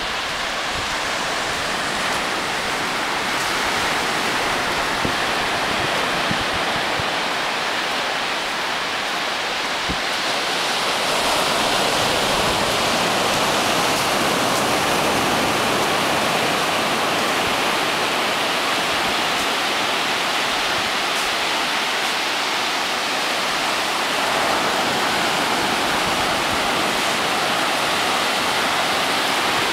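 Surf breaking on a sandy beach: a steady wash of waves, growing a little louder about eleven seconds in.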